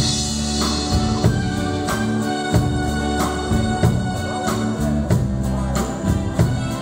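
Live rock band playing: electric guitar, bass guitar and drum kit, opening with a loud hit on the downbeat and carrying on with a steady beat.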